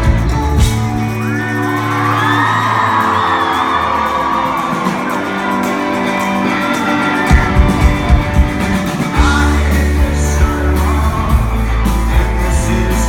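Rock band playing live in a large hall, a sung vocal line over held chords. The drums and bass drop out for several seconds, then come back in hard about halfway through.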